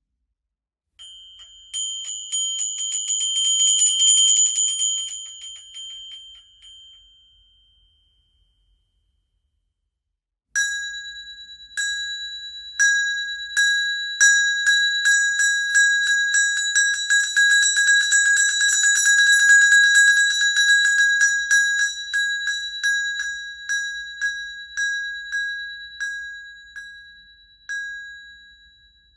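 A bell shaken in two takes, its clapper striking rapidly and the ring held between strokes. The first take is short and higher-pitched and fades out. After a pause, a longer, lower-pitched take swells in fast strokes, then slows to separate strikes near the end.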